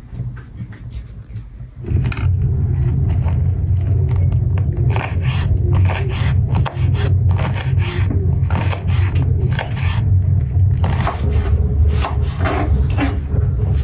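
Kitchen knife chopping green onions on a wooden cutting board: a quick, irregular run of cuts that starts about two seconds in, over a steady low rumble.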